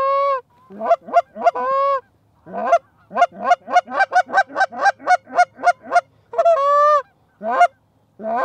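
Canada goose call blown by a hunter to bring in geese: single honks and long drawn-out moans, with a fast run of short clucks about four a second in the middle.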